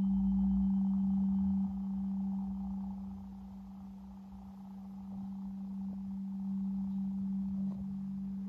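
Singing bowl sounding one steady, low, almost pure hum with a fainter higher overtone, easing off after about two seconds and swelling again near the end. A faint high ring dies away in the first couple of seconds.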